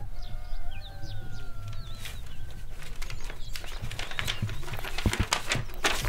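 A rooster crowing in two long drawn-out calls with small birds chirping. About two seconds in it gives way to sheets of paper rustling, crackling and tearing as they are handled.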